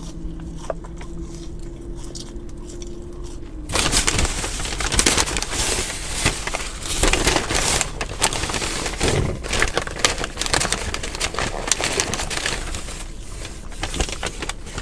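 A steady low hum for the first few seconds, then from about four seconds in a continuous crinkling and crackling of a paper food wrapper handled close to the microphone.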